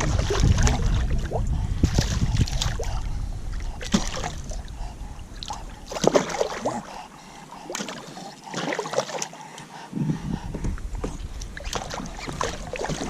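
Wind buffeting the microphone on a kayak, with scattered knocks and water splashes around the hull. The wind rumble drops away for a few seconds in the middle, then returns.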